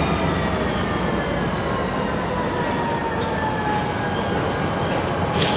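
Diesel switcher locomotive moving cars, with a steady low rumble and a whine that falls slowly in pitch as the move slows down.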